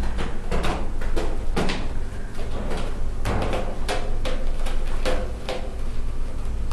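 Kittens playing close by: irregular knocks, taps and rustling, several a second at times, over a steady low rumble.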